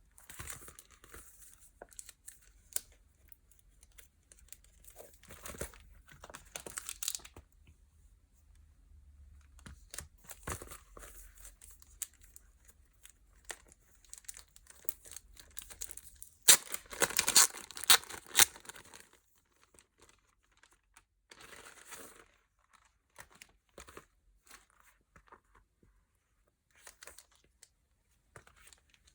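Packaging being unwrapped by hand: crinkling and tearing in irregular bursts with short quiet gaps between them. The loudest and longest burst comes about two-thirds of the way through.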